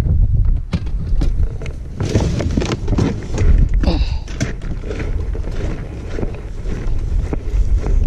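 Wind buffeting the microphone, with scattered knocks and rustles of plastic boxes, a cooler and bags being handled and lifted out of a car's cargo area.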